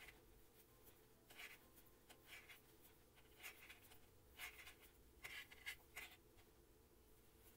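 Faint scratchy rubs of super bulky yarn dragging over a crochet hook and through the fabric as single crochet stitches are worked, about seven short scrapes roughly a second apart, over a low steady room hum.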